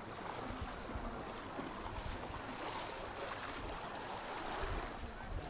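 Beach ambience: small waves washing on the shore, with wind buffeting the microphone as an uneven low rumble.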